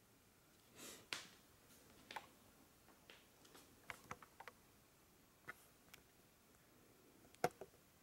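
Near silence broken by faint, scattered clicks and taps of handling, with a brief swish about a second in and the sharpest click about seven and a half seconds in.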